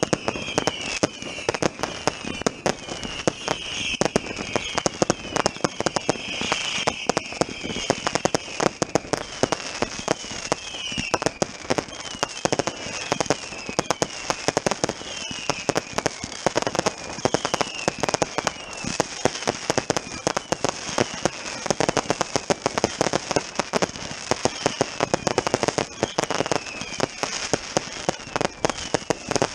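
Consumer firework batteries firing in a dense finale: rapid, continuous cracks and bangs, with short falling whistles repeating throughout.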